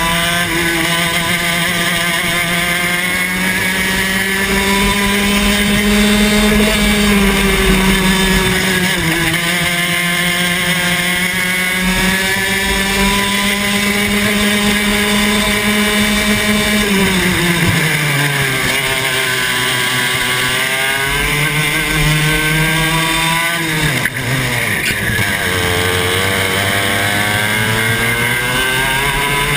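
Onboard sound of a Club 100 TKM 115cc two-stroke kart engine at full racing pace, its pitch climbing steadily along the straights. The pitch drops sharply twice, after about 17 seconds and again near 24 seconds, as the driver lifts off for corners, then climbs again.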